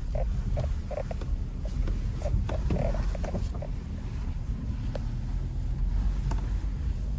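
Suzuki S-Cross hybrid's 1.5-litre petrol engine and tyres rumbling steadily, heard from inside the cabin while driving over rough off-road ground. Short creaks and knocks from the body and suspension come through in the first half.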